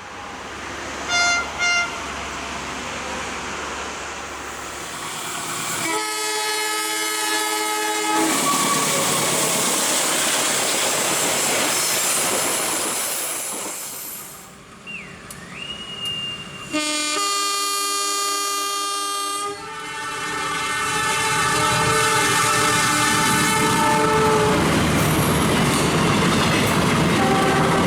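Diesel locomotive horn sounding as a train runs past: two short toots about a second in, a blast of about two seconds around 6 s, and a longer blast from about 17 s that carries on to about 24 s. Between and under the blasts is the steady rush and clatter of the train's wheels on the rails.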